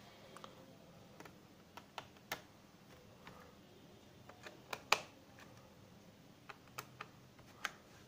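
Scattered light clicks and taps of plastic on a laptop's underside as the RAM access cover is fitted back and its screw is turned in with a small screwdriver. The sharpest tap comes about five seconds in.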